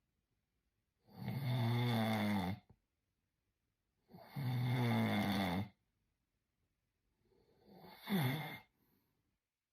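A person snoring: three long snores about three seconds apart, the last one shorter.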